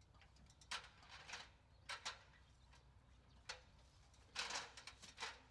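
Near silence with faint, scattered short clicks and knocks, about six of them, some in quick pairs.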